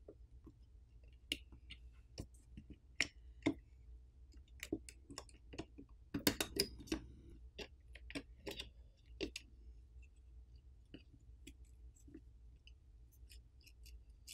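Small scattered clicks and taps of fingers and parts handling an opened Google Pixel 7 Pro as its main board is worked loose and lifted out of the frame, with a quick cluster of clicks about six seconds in.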